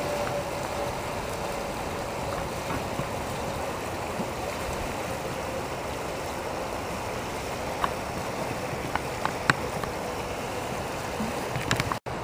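Steady rush of the Chattahoochee River's flowing water, an even hiss with no let-up. A few sharp clicks come about eight to nine and a half seconds in.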